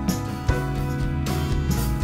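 Instrumental background music with steady sustained tones and regular note attacks.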